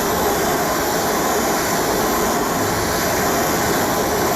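Gas torch flame burning with a steady hiss, heating a bent aluminium alloy scooter wheel so that the dent can be pressed out without the metal cracking.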